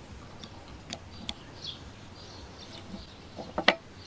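Small clicks and knocks of a spanner and carburetor parts being handled and set down, with a quick clatter of several knocks about three and a half seconds in, the loudest sound.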